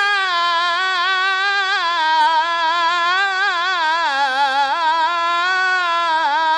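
A single unaccompanied male voice chanting an Arabic supplication, drawing out the vowel of "wa-yā" in one long, wavering, ornamented melisma.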